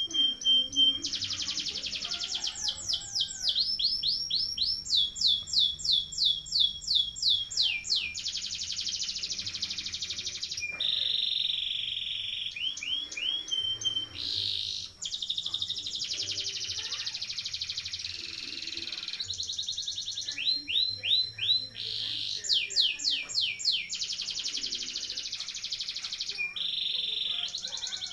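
Domestic canary singing a long, nearly unbroken rolling song (ngerol). Fast trills of quickly repeated sweeping high notes alternate with steady buzzing rolls.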